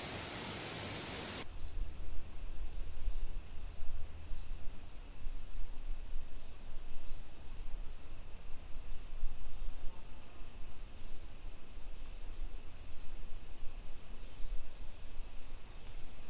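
Insects chirping in a field chorus: one steady high trill and a second, lower chirp that pulses in an even rhythm, over a low rumble that rises and falls. Just before that, about a second and a half of steady hiss cuts off suddenly.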